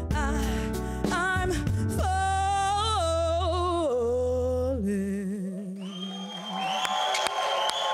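A woman sings a long, drawn-out final phrase with vibrato over a karaoke backing track. The voice steps down in pitch and ends about five seconds in. An audience starts applauding and cheering about a second later.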